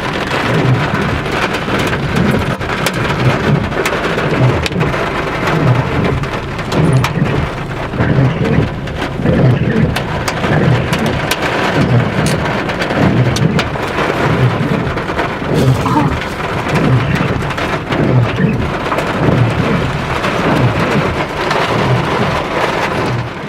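Hail and heavy rain pelting a car, a dense steady clatter of many sharp hits.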